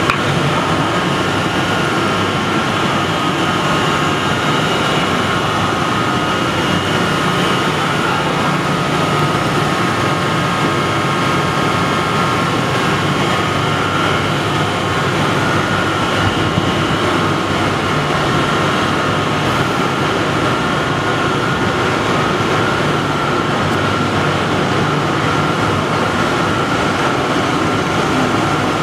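Pyrolysis plant machinery running: a loud, steady mechanical din from the rotating reactor and its drive, with a few steady high tones over it.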